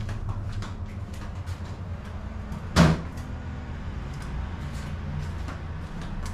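A storage cabinet in a garage shutting with one loud bang about three seconds in, amid light footsteps in flip-flops.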